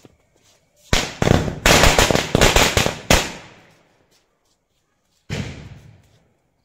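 Firecracker going off on the ground: a rapid crackling run of loud bangs for about two seconds, starting about a second in and fading out, then one more loud bang about five seconds in.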